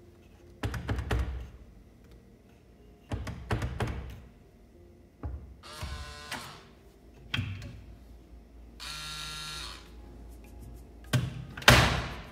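Electronic fingerprint cabinet lock being handled and worked: bursts of clunks and knocks, two short electric buzzes near the middle, and one loud knock near the end.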